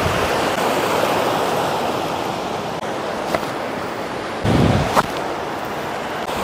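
Steady rushing of a mountain trout stream's flowing water. A short thump and a sharp click break in near the end.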